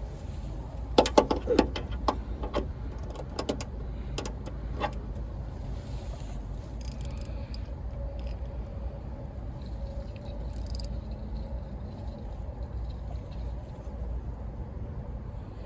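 Metal hand tools clinking and rattling together in a quick cluster of sharp clicks over the first few seconds, then only a steady low rumble.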